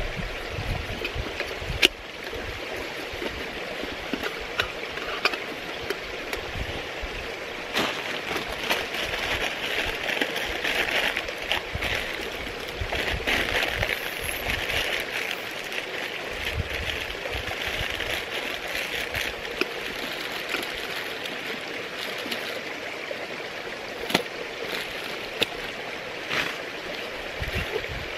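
Hands packing away camping stove gear: scattered clicks and knocks as a titanium mug and stove go into a mesh bag, and plastic bag crinkling for several seconds in the middle. A steady rushing background runs underneath.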